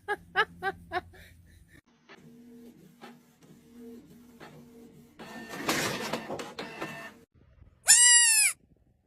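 Five quick, high, rising squeaks, then a loud bleat-like animal call lasting about half a second near the end.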